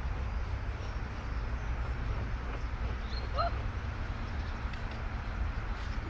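Steady low outdoor rumble, typical of wind on the microphone in an open paddock, with a brief bird chirp about three and a half seconds in.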